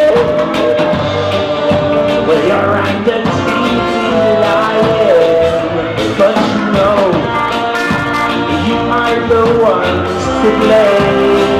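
Live ska band playing with brass: trombone and saxophone over electric guitar, keyboard and drums. A long held note carries over the first couple of seconds, then the melody lines move on between sung lines.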